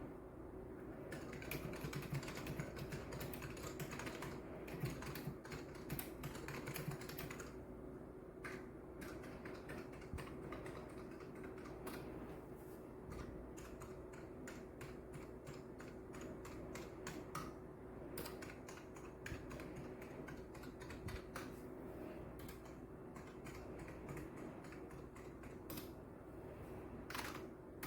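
Typing on a KBParadise V60 mechanical keyboard with Matias linear red switches: a steady stream of key clicks, each key bottoming out with a slight smack and a little rattle, with two brief pauses.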